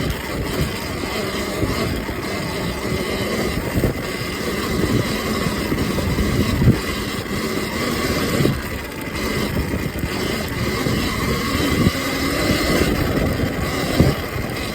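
Sur-Ron Ultra Bee electric dirt bike being ridden off-road over rough ground: a faint steady motor whine under wind buffeting, with scattered knocks and rattles from the bumps.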